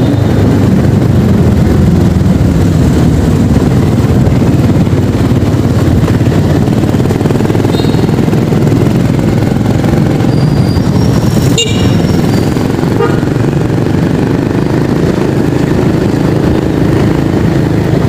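Motor scooter engine running steadily under way in traffic, heard from on board with road and wind noise. A short, sharp, high-pitched sound comes about eleven and a half seconds in.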